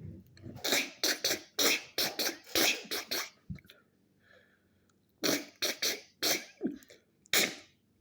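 A person making mouth sound effects: a quick run of short, breathy, noisy bursts, then after a pause of about two seconds about five more.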